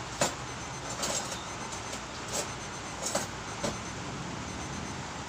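About five short, sharp clicks and knocks at uneven intervals over steady background hiss, the loudest about a quarter second in.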